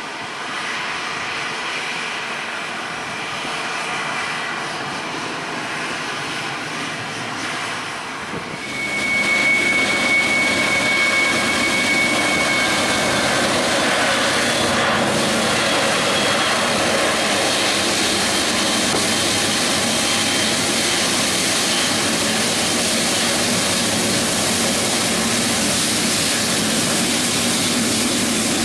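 Jet engines of a departing Boeing airliner, a steady dense roar that gets sharply louder about eight seconds in and stays loud, with a high steady whine for a few seconds just after the rise.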